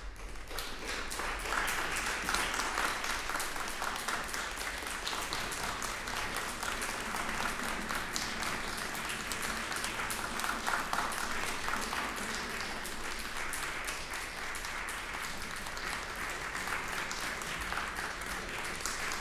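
Concert hall audience applauding, swelling over the first two seconds and then steady.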